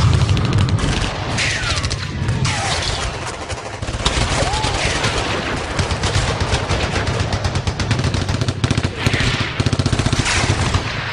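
Battle sound effect: dense, rapid machine-gun and rifle fire over a continuous low rumble, with a few falling whistling tones mixed in. It cuts off abruptly at the end.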